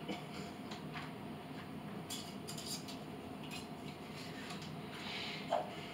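Light clicks, taps and rustling from kitchen items being handled at a countertop blender, with a sharper tick near the end.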